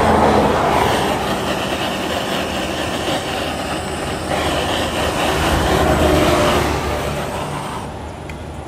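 Handheld butane gas torch burning steadily as it heats the cable entry seals of a fiber optic splice closure, a rushing flame noise that eases off near the end.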